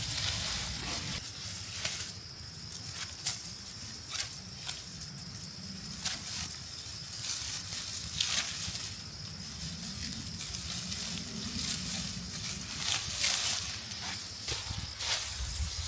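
Rice plants rustling and snapping in short, irregular bursts as the rice heads are picked by hand. A steady, thin high tone runs underneath.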